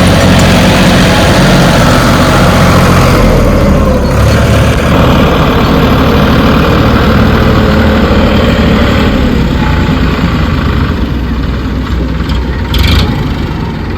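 Diesel engine of heavy earth-moving machinery running steadily, its engine note shifting a little between about three and nine seconds in. A short burst of noise comes near the end.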